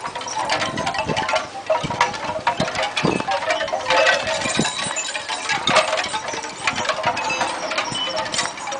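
Small metal collar tags and charms on two chihuahuas jingling as the dogs trot and play, a steady run of irregular clinks and light ringing.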